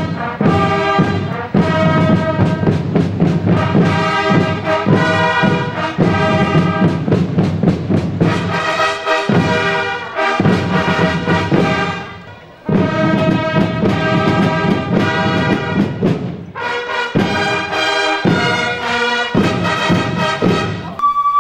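Fanfare band of long fanfare trumpets with drums playing a march, with a short break about twelve seconds in before the band comes back in.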